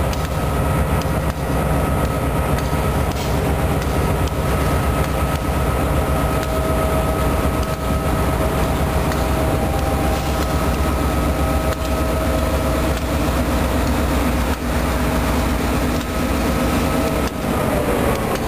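Freight train cars rolling past at close range: a steady rumble of steel wheels on rail with faint clicks over the joints, and a thin steady wheel squeal that slides down in pitch near the end.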